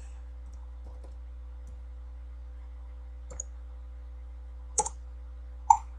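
A few sharp computer keyboard clicks, spaced irregularly about a second apart, as a number is typed in, over a steady low electrical hum. The last click, near the end, is the loudest.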